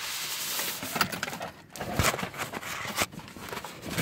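Plastic air-column bubble wrap rustling and crinkling as a box is slid out of it, with scattered knocks and a thump about two seconds in.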